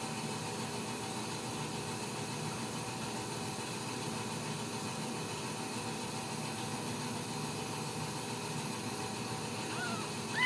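Steady background hiss with a faint hum. Near the end, a newborn Ragdoll kitten mews: first a faint short mew, then a louder mew that rises and falls.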